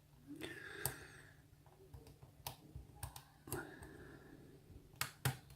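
Lock pick working the pins inside a Yale-based pin-tumbler lock: faint, scattered small metallic clicks with some light scraping, as pins are lifted and set.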